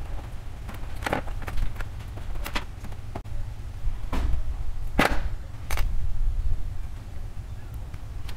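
Wire stripper snapping and clicking as its jaws grip and strip the insulation off a single-core wire: several sharp snaps spread over the first six seconds, the loudest about five seconds in, over a steady low rumble.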